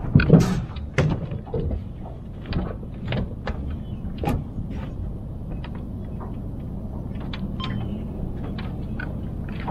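Irregular clicks and knocks of fishing gear being handled on a boat: rods, holders and tackle, thickest in the first few seconds. A steady low hum runs underneath.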